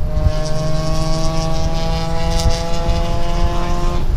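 Volkswagen Golf R's turbocharged 2.0-litre four-cylinder heard from inside the cabin, accelerating hard in one gear with its pitch rising steadily, then dropping away abruptly near the end. Tyre and road noise run underneath.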